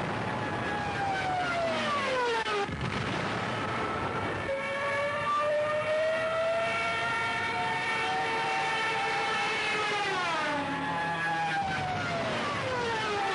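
Junkers Ju 87 Stuka dive siren wailing over engine noise as the aircraft dives, its pitch sliding down several times and holding a long high tone in between.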